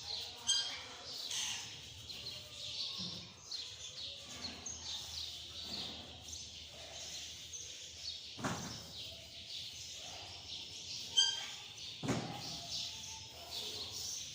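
Small birds chirping and twittering over and over in short high calls. Two dull knocks sound, one a little past the middle and one near the end.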